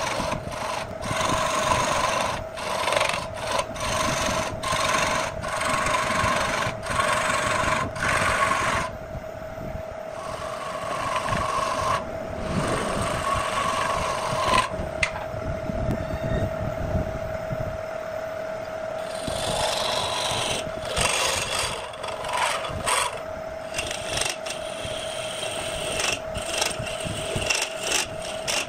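Turning tool cutting a spinning wooden workpiece on an electric wood lathe. Loud scraping comes in short strokes with brief gaps, eases off in the middle and returns in spells near the end, over the lathe's steady hum.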